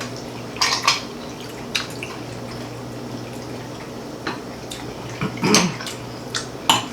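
Forks clinking against plates while people eat, several sharp scattered clinks, the loudest about halfway through and just before the end, over a steady low hum.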